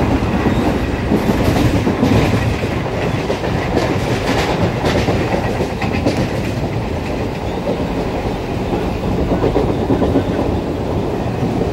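Electric multiple unit (EMU) suburban train running fast, heard from inside through an open barred window: a steady, loud rumble of wheels on rails. Rail-joint clicks come through in the first half.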